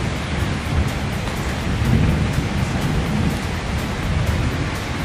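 Steady hiss of rain falling on wet ground, with a deep low rumble underneath.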